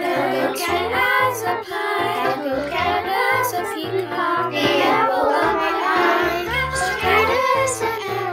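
Fourth-grade children's choir singing in unison over an instrumental accompaniment with a moving bass line. The voices were recorded separately at home and mixed together as a virtual choir.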